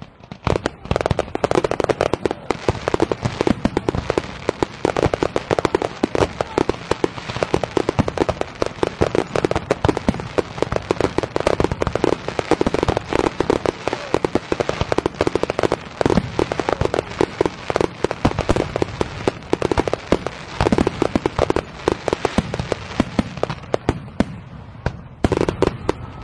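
Fireworks going off in a dense, continuous barrage of sharp cracks and pops, many a second, thinning briefly near the end.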